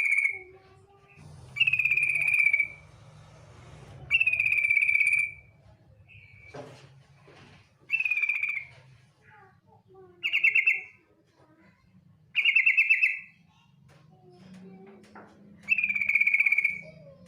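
Female yellow-vented bulbul giving its rapid trilling call, about a second long and repeated about every two seconds, seven times, over a faint low hum.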